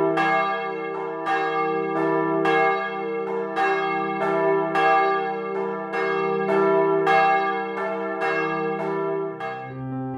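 Swinging church bells ringing in the tower, several bells striking in turn, a strike about every half second over a lingering hum. Near the end a piano takes over.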